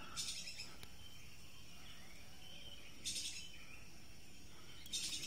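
Forest ambience: faint distant bird calls, with short high-pitched chirping bursts near the start, about three seconds in and near the end.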